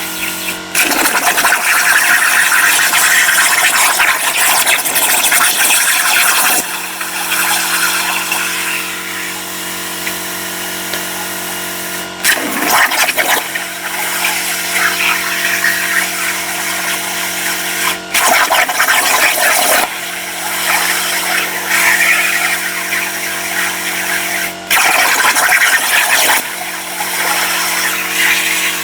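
CNC plasma cutter with torch height control cutting steel: a loud hissing arc comes in several stretches, the longest in the first six seconds, each starting after a brief break. A steady machine hum with a fixed pitch runs underneath.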